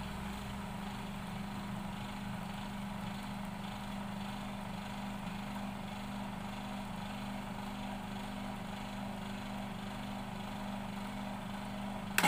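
Electric stainless-steel oil spinner (2-litre centrifugal oil drainer) running with a steady motor hum. Near the end it is switched off with a click at its rocker switch and the hum drops away.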